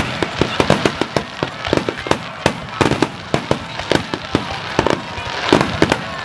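Fireworks going off in quick succession: many sharp bangs and cracks, several a second, over a continuous crackle.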